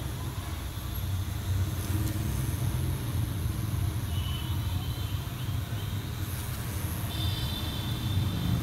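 Cartridge pen tattoo machine running with a steady low hum as the needle works ink into the skin.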